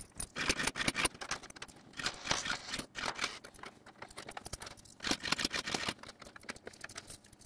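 Several US coins dropped one after another into a 3D-printed PLA coin sorter, clicking and clattering against its plastic and each other as they fall through. They come in several short bursts of sharp clicks.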